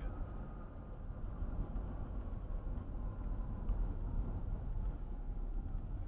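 Steady low road and engine rumble of a car heard from inside the cabin as the car slows down.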